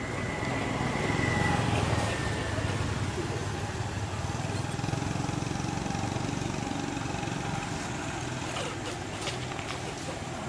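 A motor vehicle engine running steadily, a low rumble that swells slightly about a second in and then holds.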